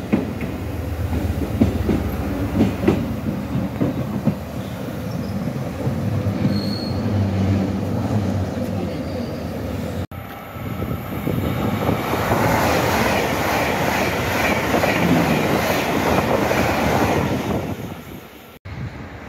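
SNCF BB 60000 diesel locomotive running and approaching with a steady low engine hum. About ten seconds in, after a cut, louder rail noise takes over: wheels on the track with a squealing edge.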